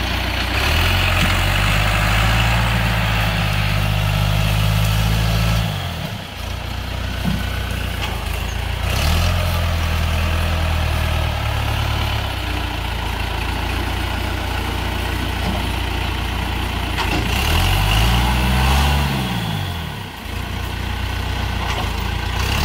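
Farm tractor engine working under load as its front loader pushes over brush and small trees. The engine note sags about six seconds in and again near the end, and rises then falls in pitch about three-quarters of the way through.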